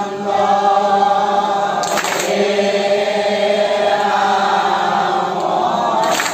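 A congregation of men chanting a naam-prasanga, Assamese Vaishnava devotional chant, in unison on long held notes. Two brief sharp hits cut through it, about two seconds in and again near the end.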